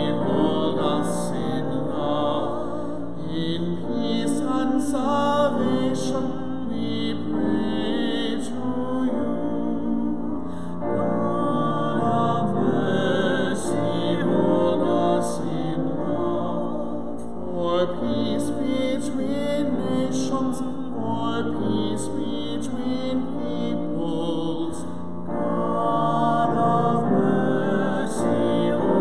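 Singing of a sung church evening-prayer liturgy, a chant-like melodic setting that runs on without a break.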